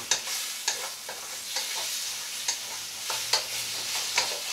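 Diced beef rib meat sizzling in a lightly oiled pan over medium-high heat while being stirred, with the utensil scraping and clacking against the pan at irregular intervals over the steady sizzle.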